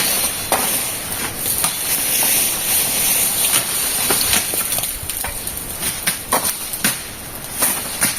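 Machete and brush hook chopping through peach palm leaves and stems: irregular sharp cuts, several a second at times, over a steady high hiss.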